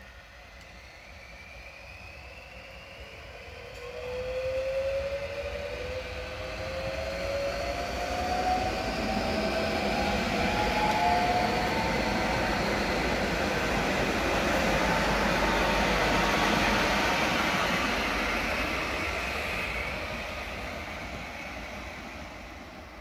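Croatian Railways low-floor electric multiple unit accelerating past, its traction motors giving a whine that climbs steadily in pitch. Wheel and rail noise swells to a peak as it goes by and fades near the end.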